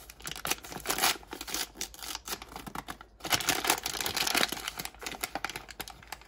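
Plastic packaging crinkling and tearing in quick, irregular crackles as a Barbie Color Reveal doll's wrapper is pulled open, thinning out near the end.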